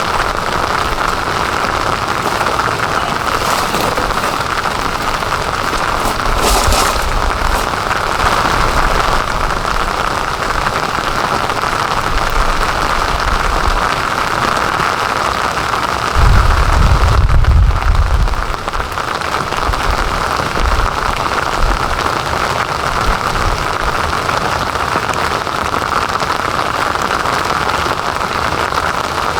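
Heavy rain falling steadily, an even hiss of drops. A low rumble rises over it for about two seconds around the middle.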